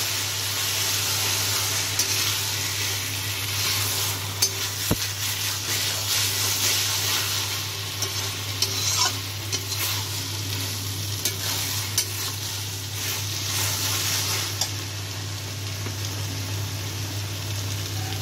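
Cooked greens sizzling in a hot metal kadai while a metal spatula stirs them, with scattered sharp clicks of the spatula striking the pan.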